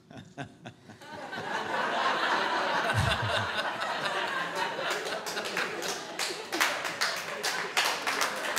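An audience laughing, the laughter swelling up about a second in, then breaking into applause about halfway through that carries on under the laughter.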